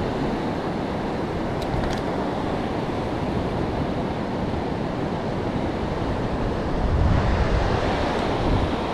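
Surf washing onto a sandy beach with wind buffeting the microphone, in a steady rush that swells louder about seven seconds in.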